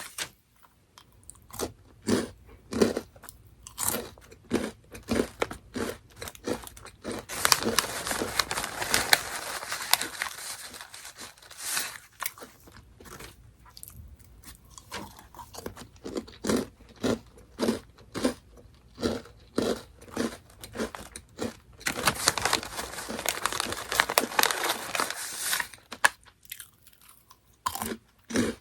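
Close-up crunching and chewing of Orion Mala Chicken Pop snack crackers: a run of sharp crunches, often about two a second, with two longer stretches of dense crackling, about a quarter of the way in and again about three quarters in.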